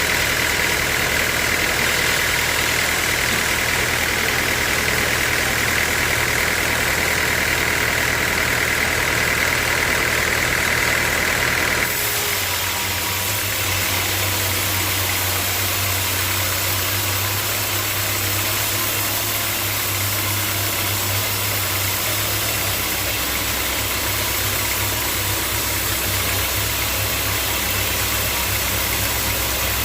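Sawmill machinery running steadily with an engine-like hum. About twelve seconds in, the sound changes suddenly, a higher hissing whine dropping out and a lower steady hum carrying on.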